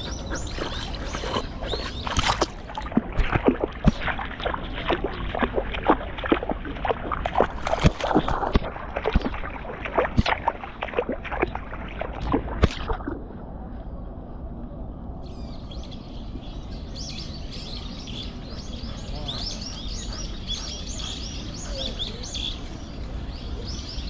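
Close, irregular splashing and knocking at a collar-mounted action camera as a dog moves in a shallow stream, for about the first thirteen seconds; then steady trickling water, with small birds chirping over it from a few seconds later.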